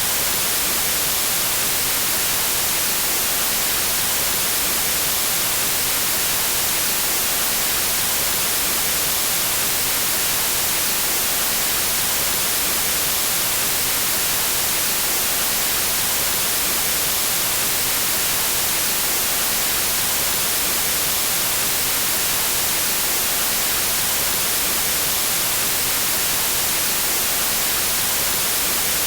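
Steady, unchanging synthetic white noise: an even hiss, brighter in the highs, with no variation.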